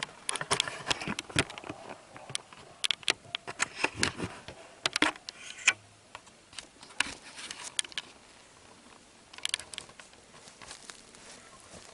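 Camera handling noise: a quick string of clicks, knocks and rubbing as the camera is taken off its mount and carried, dying down about halfway through with a few more clicks near the end.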